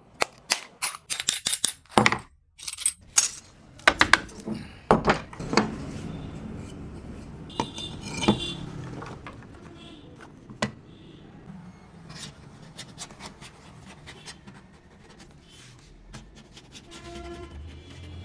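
Small hard objects being handled: a quick run of sharp clicks, knocks and metallic clinks in the first six seconds, then sparser single clicks, typical of tools and mirror parts being picked up and set down.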